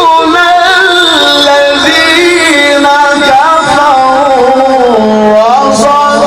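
Qur'an recitation in melodic tajweed style: a single voice holding long notes with wavering ornamental turns, settling on one steady held note about five seconds in.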